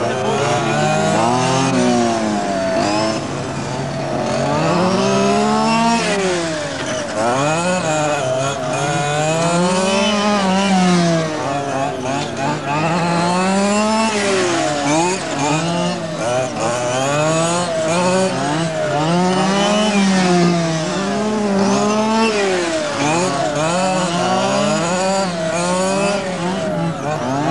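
Several RC model race cars' small two-stroke engines running together, each one's pitch repeatedly rising and falling as the cars accelerate and slow around the track.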